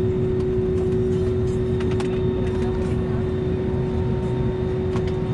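Steady airliner cabin drone: a low rumble with a constant hum over it. A few light clicks are heard.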